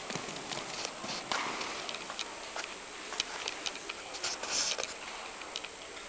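Horse cantering on a sand arena surface: hoofbeats heard as scattered, irregular clicks and thuds.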